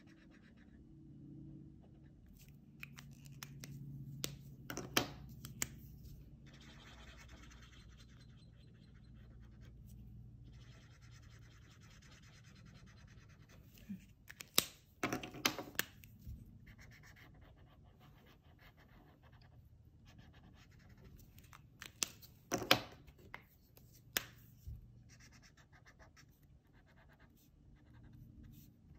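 Felt-tip marker rubbing on paper in stretches of coloring strokes, broken by sharp clicks and knocks as markers are picked up, swapped and put down, loudest around five seconds in, about a third of the way through, and again near the three-quarter mark.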